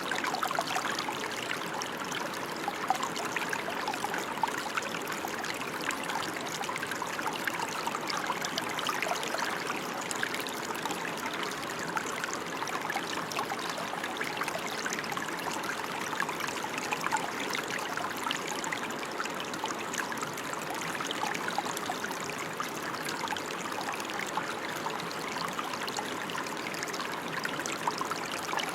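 Steady rainfall: a dense, even hiss of falling water made of countless small drop hits, unchanging throughout.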